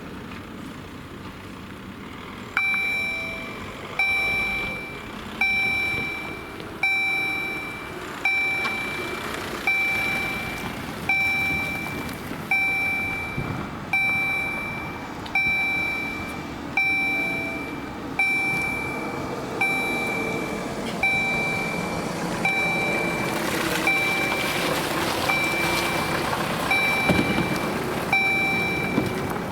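Level-crossing warning bell (EHL-S10 electronic bell) starting up a few seconds in and striking at an even pace, one clear ringing tone about every second and a half, each fading before the next: the crossing has been activated for an approaching train. A rushing vehicle noise swells under the strikes near the end.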